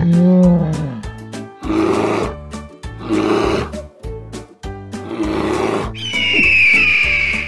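Brown bear roaring and growling over children's background music with a steady beat: a falling call in the first second, then three shorter growls. A high whistling tone comes in about six seconds in.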